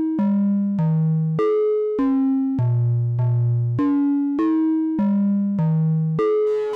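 Make Noise 0-Coast synthesizer oscillator, frequency-modulated by its own cycling Slope section, playing a stepped sequence of notes at different pitches, about 1.7 notes per second. Each note starts bright at the full FM index and tapers back toward a plain triangle wave as an envelope-driven VCA closes down the modulation.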